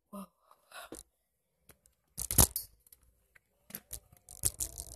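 Crackling and knocking handling noise on a phone's microphone while riding an electric scooter, irregular, with the loudest crackle about two seconds in and another cluster near the end.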